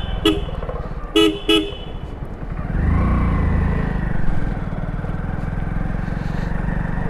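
Three short horn toots in quick succession in the first two seconds, over a small motorcycle engine running steadily. The engine swells louder around three seconds in, then settles back.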